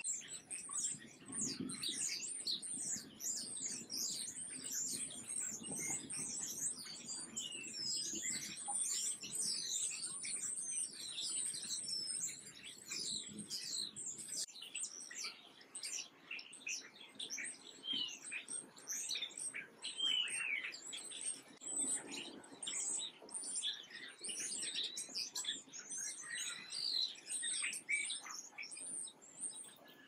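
Many small songbirds chirping at once: a dense, continuous chorus of quick high chirps and short downward-sweeping calls.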